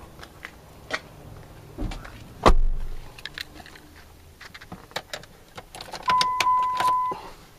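Handling clicks and knocks inside a pickup cab, with one heavy thump about two and a half seconds in. Near the end a steady electronic beep sounds for about a second, a dashboard warning tone.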